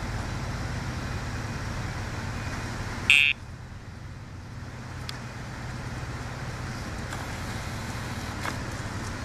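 Steady traffic and outdoor background noise, with one short, loud electronic beep about three seconds in. After the beep the background drops quieter for a few seconds.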